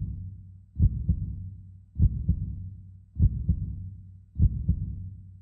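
Slow heartbeat sound effect: low double thumps, lub-dub, about once every 1.2 seconds, each fading into a low hum.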